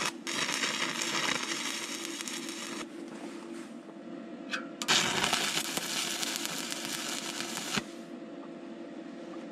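Stick welding arc crackling and sizzling as short tack welds are laid with 2 mm OK 48 (7018) rods from a Migatronic Focus Stick 160 welder: two bursts of about three seconds each, a short pause between them. A steady hum runs underneath.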